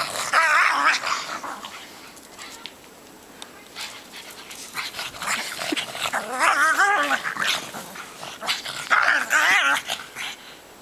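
Pugs play-fighting, vocalizing in three wavering, growly bouts: one near the start, one in the middle and one near the end, with a quieter stretch between the first two.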